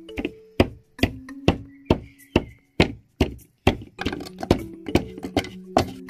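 A stone pestle pounding flower petals in a coconut-shell mortar: sharp knocks about twice a second. Soft background music with held notes runs underneath.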